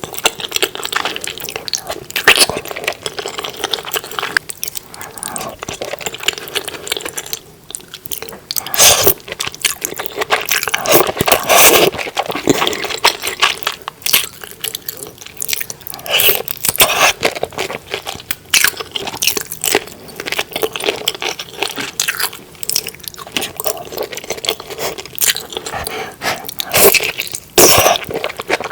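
Close-miked eating sounds of saucy seafood being bitten and chewed: wet, sticky mouth sounds with irregular crunches and clicks.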